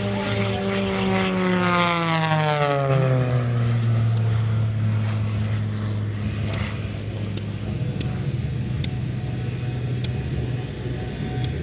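Six-cylinder Lycoming 540 engine and propeller of an MXS aerobatic monoplane passing overhead. The engine note falls in pitch as the plane goes by over the first three seconds or so, then holds a steady drone as it flies away.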